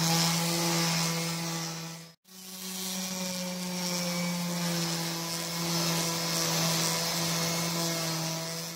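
Random orbital sander running steadily, its motor humming under the scratch of the pad sanding a pine board over knots filled with glue and sawdust. The sound cuts out abruptly for a moment about two seconds in, then the sanding carries on.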